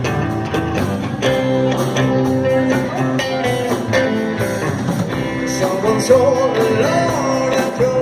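Rock band playing an instrumental intro: strummed guitars over bass and drums keeping a steady beat, with a wavering melody line coming in past the halfway point.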